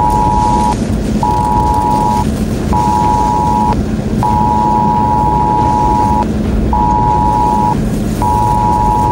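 Wireless Emergency Alert attention tone from a phone: a two-pitch beep in a repeating pattern of one long and two short, signalling an extreme wind warning for life-threatening winds. It sounds over steady road and storm noise inside a moving car.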